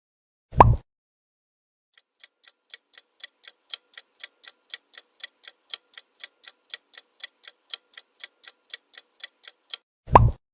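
Countdown-timer clock ticking sound effect, about four ticks a second for nearly eight seconds. It is framed by a short sound effect falling in pitch near the start and again near the end.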